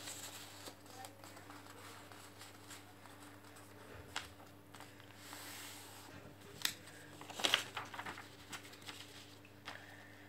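A sheet of paper being handled and folded by hand: soft rustling and crinkling, with a few sharp crackles a little past the middle as the folds are pressed flat.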